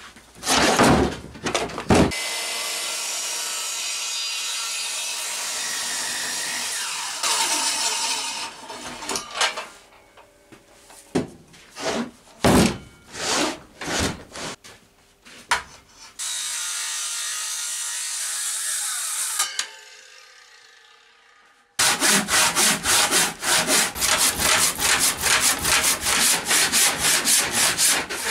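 Knocks and thuds of a heavy oak beam being shifted on a workbench, with stretches of steady hiss. In the last six seconds a hand saw cuts into the oak in quick, even strokes.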